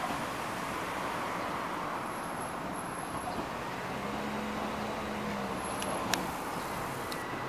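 Steady outdoor traffic noise, with a low hum swelling for a second or two in the middle and a single sharp click about six seconds in.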